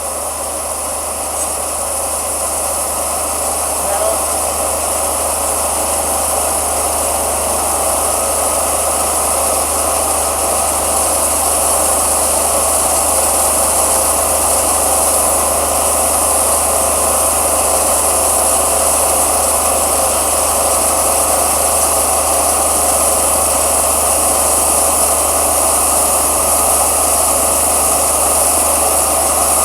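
Wood-Mizer LT40 Wide Super sawmill with its diesel engine running and the band blade sawing through a walnut log at maximum cut width. The steady mechanical noise grows gradually louder over the first ten seconds or so, then holds.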